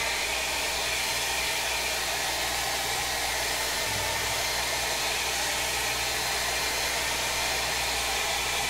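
Hair dryer running steadily, a constant rush of air with a faint whine, blowing on tail light protection film to heat and soften it.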